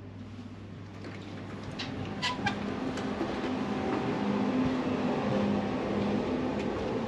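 Interior noise of a Siemens Velaro high-speed train while passing between cars: a steady low hum that grows louder from about two seconds in, with a few short sharp clicks around then.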